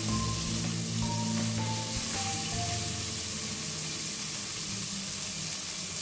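Diced calabresa sausage and bacon sizzling as they fry in a pot, briefly stirred with a spatula at the start. Background music with a stepping-down melody plays over the first few seconds.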